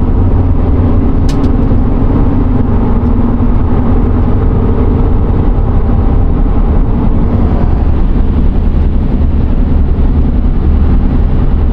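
2017 Chevy Colorado pickup driving at road speed: a steady drone of engine and tyre noise that holds an even pitch.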